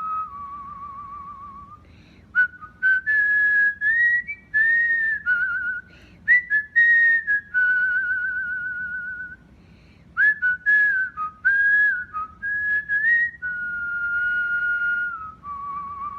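Cockatiel whistling its song: a run of clear whistled notes, some held steady and some warbling, mixed with short chirps, with brief pauses about two seconds in and again a little before halfway through the second half.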